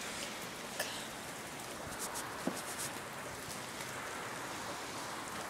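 Sleet falling, a steady hiss with a few faint scattered ticks.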